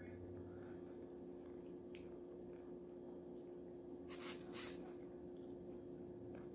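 Fork working into a plate of cheese fries: faint soft squishing and small clicks, with two short scraping noises about four seconds in as a forkful is lifted. A steady low hum runs underneath.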